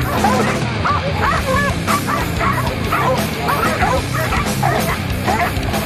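A pack of hog dogs barking and bawling repeatedly, several at once, as they bay a wild boar. A music track plays underneath.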